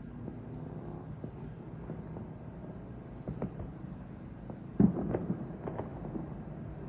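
Distant fireworks going off: scattered pops and bangs over a steady low rumble, the loudest bang about five seconds in.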